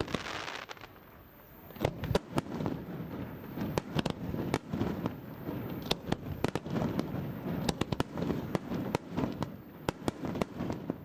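Fireworks display: aerial shells bursting with many sharp bangs over a continuous low rumble. A brief hiss at the start gives way to a short lull, then the bursts come thick and fast from about two seconds in.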